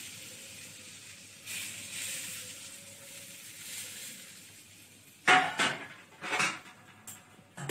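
Hot oil sizzling softly as it froths into gram flour in a steel bowl. A little over five seconds in, several sharp metallic clinks and knocks against the steel bowl, louder than the sizzle.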